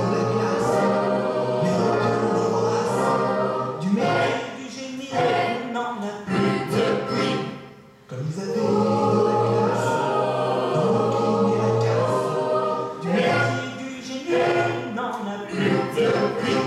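Small mixed choir of men and women singing in sustained phrases; the singing drops away briefly about eight seconds in, then resumes, with hand claps joining in near the end.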